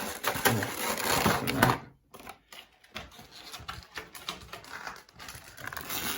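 Cardboard and plastic packaging being handled while a collector box is opened: dense rustling and clicking for about the first two seconds, then quieter scattered taps and rustles.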